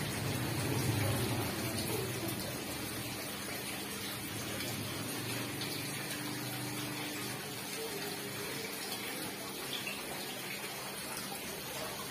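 Steady splashing of water falling into a garden fish pond.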